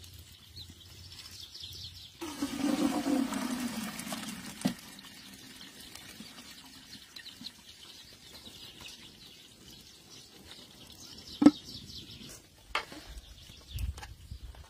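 Boiling water and herb rice poured from a pot into a metal colander: a rush of draining water for about two and a half seconds that falls in pitch as it goes, ending in a knock. Later a single sharp clank and a few lighter knocks of metal cookware.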